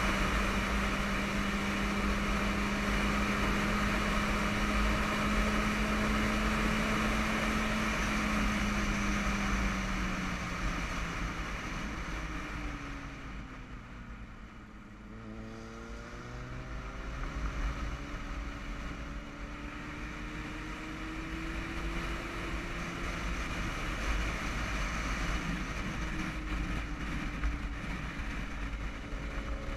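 Yamaha motorcycle's engine running under wind rush on a helmet-mounted camera while riding. The engine note falls as the bike slows about halfway through, then rises steadily as it speeds up again.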